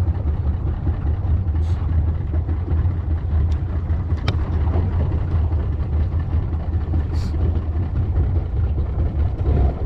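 Boat motor running steadily under way, a continuous low drone.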